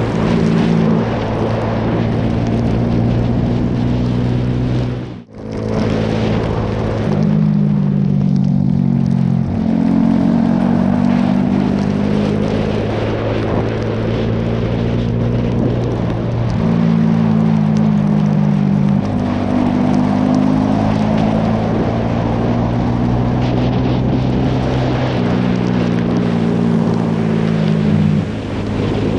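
Motorcycle engine running at riding speed, its pitch stepping up and down every few seconds with the throttle, over wind noise on the microphone and tyre hiss on a wet road. The sound briefly drops out about five seconds in.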